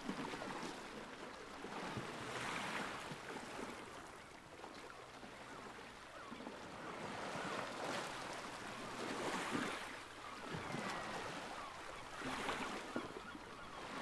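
Sea waves washing in, swelling and fading every few seconds, with wind.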